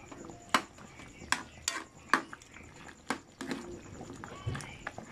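Metal ladle knocking and scraping against a metal wok while stirring a simmering stew, with a string of sharp, irregular clinks roughly once a second.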